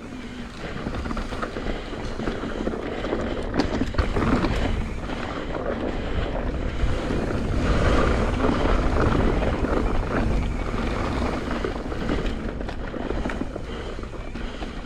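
Mountain bike riding along a dirt trail: wind rushing over the microphone and tyres rolling, with a few short clicks and rattles, growing louder as it picks up speed.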